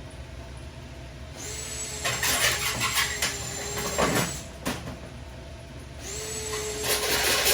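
Power drill run twice, each time spinning up to a steady whine, with the bit grinding and scraping into sheet metal as it drills out rivet heads.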